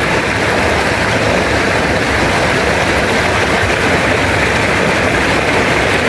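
Waterfall and stream water rushing over boulders: a loud, steady roar with no breaks.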